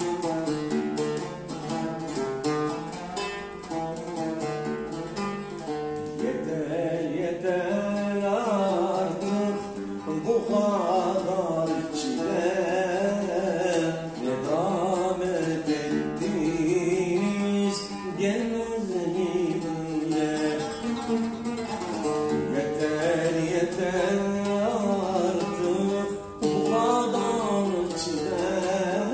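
An oud playing a Turkish art music melody alone. About six seconds in, a man's tenor voice comes in singing the piece in long, ornamented lines, with the oud going on underneath.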